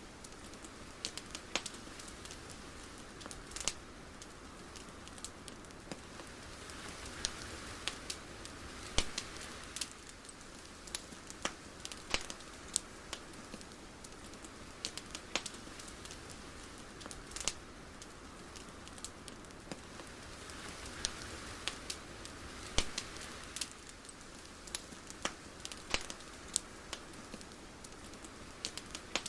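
Irregular sharp crackling pops over a soft steady hiss that swells gently twice.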